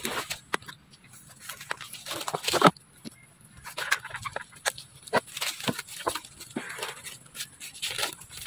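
Macaques handling a crumpled plastic cup and bottle on dry leaf litter: irregular crinkling of plastic and rustling leaves, loudest about two and a half seconds in, with a few short monkey calls.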